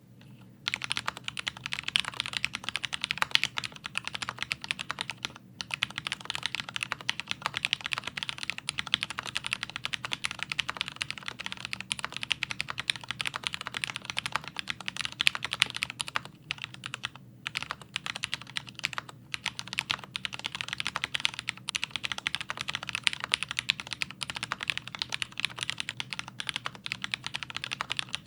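Continuous fast typing on a Leopold FC650MDS mechanical keyboard with linear Cherry MX Speed Silver switches, lubed with Krytox: a dense run of keystrokes starting about half a second in, with a few short pauses.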